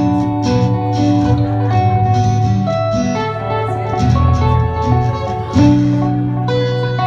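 Acoustic guitar music played live: an instrumental stretch of chords and held notes, with a louder strummed chord about five and a half seconds in.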